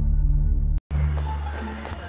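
Background music. A low, steady droning piece cuts off suddenly a little under a second in, and after a brief gap a different piece with sustained low notes begins.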